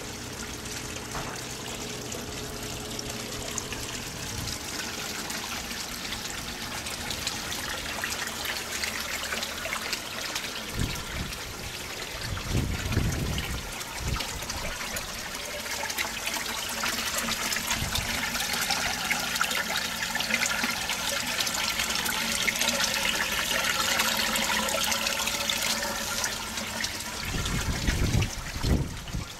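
Water pouring steadily from PVC pipe outlets and splashing into the tanks of an aquaponics system as it circulates, a continuous trickling and splashing. A couple of brief low rumbles come about halfway through and again near the end.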